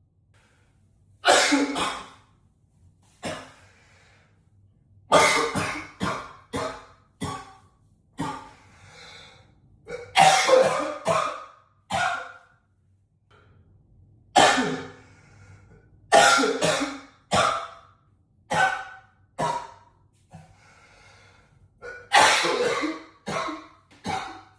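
A man coughing in repeated fits of several hard coughs each, with breaths drawn between the fits, echoing in a small bathroom.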